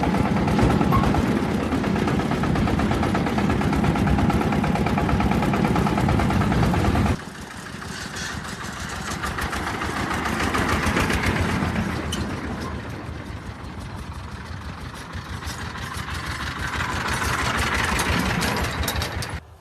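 A farm vehicle's engine runs loud and steady, then cuts off abruptly about seven seconds in. After that a quieter engine sound swells and fades twice.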